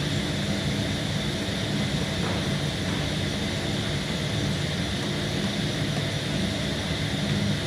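Steady drone of a woodworking machine running in the workshop: an even motor hum with a hiss above it and no change in speed.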